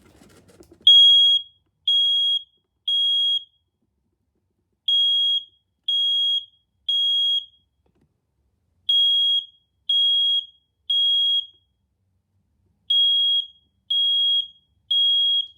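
Smoke detector sounding its alarm in the temporal-three evacuation pattern: three high-pitched beeps about a second apart, a pause, repeated four times.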